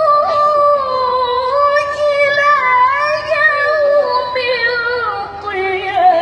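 A woman reciting the Quran in the melodic tilawah style, holding long ornamented notes that wind slowly up and down, with the pitch stepping lower near the end.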